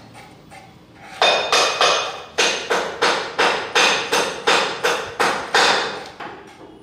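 Spatula scraping and slapping on a stone slab as two-part epoxy adhesive is mixed and spread, in quick even strokes about three a second. The strokes start about a second in and fade near the end.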